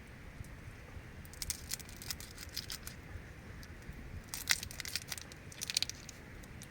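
Several short bursts of crackling and crinkling, like something being handled, crumpled or torn, over a low steady background rumble.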